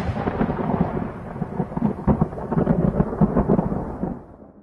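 Thunder sound effect: a deep rolling rumble with sharp crackles throughout, fading away near the end.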